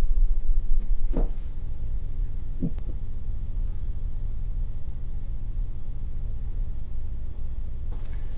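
A steady low rumble, with two faint soft knocks about a second and two and a half seconds in as a plywood side panel is pressed into the glued lock miter joints of a hollow column.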